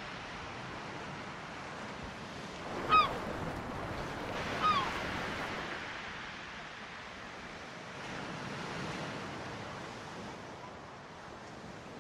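Sea surf and wind as a steady wash of noise, with two short, slightly falling bird calls about three and four and a half seconds in.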